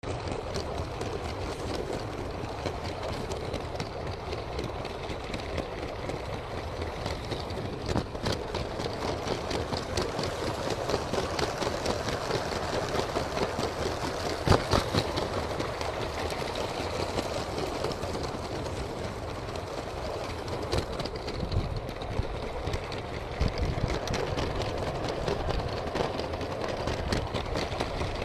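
Motorized Lego train running on plastic track: a steady, dense rattle of its small motor and wheels, with a couple of louder clicks.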